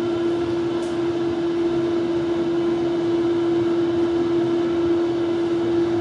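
Cruise ship glass elevator car humming steadily as it travels between decks: a constant drone with one held tone over a hiss of moving air, and a faint tick about a second in.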